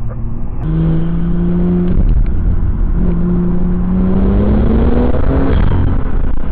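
Car engine accelerating hard: its note holds, breaks off for about a second, then climbs steadily for a few seconds before easing back near the end.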